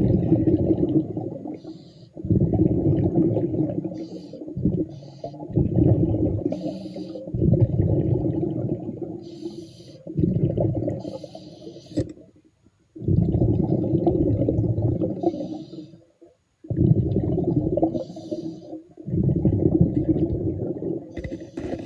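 A scuba diver breathing underwater through a regulator: repeated low bubbling bursts of exhaled air, about eight of them, each a second or two long, with short high hisses of inhalation between.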